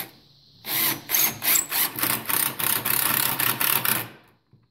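Power drill driving a wood screw through a 2x4 brace into the table seat, run in a string of short pulses that stops about four seconds in as the screw head is set just below the wood's surface.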